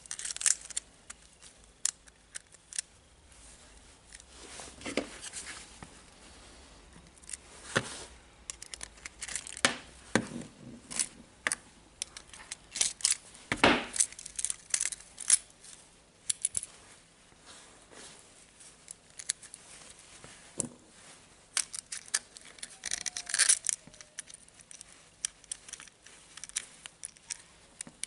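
Metal parts of a DeWalt 18V brushless drill's planetary gear assembly being worked apart by hand: irregular clicks, taps and short scrapes of small gears and rings against the gear housing, with the rustle of knit work gloves.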